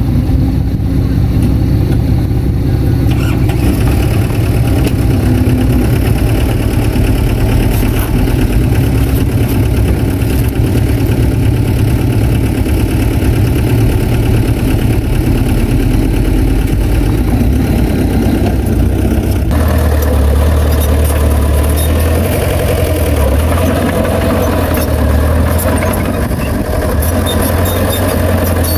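Heavy diesel engine of earthmoving machinery running steadily, with an abrupt change in its sound about two-thirds of the way through.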